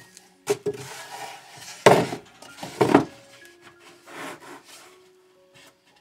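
Wooden hive boxes being handled and set on one another: wood knocking and scraping, with three sharper knocks in the first three seconds, then quieter rubbing as the boxes are pushed into line.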